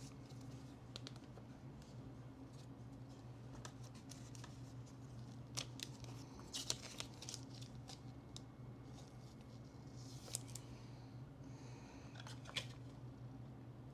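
Faint handling noise of trading cards and their packaging: scattered light clicks, scrapes and rustles over a low steady hum.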